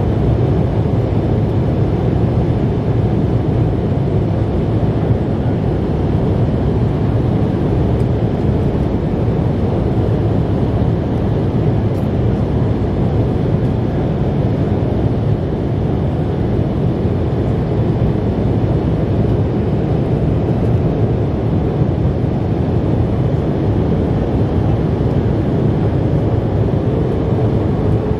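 Steady cabin roar inside an Embraer E-170 climbing after takeoff: its two GE CF34-8E5 turbofan engines and the rush of air past the fuselage, even and unbroken, heard from a window seat by the wing.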